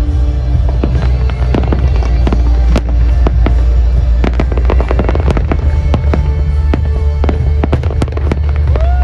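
Fireworks going off in a dense barrage, with many rapid cracks and bangs from bursting shells and crackling comets. Music plays underneath.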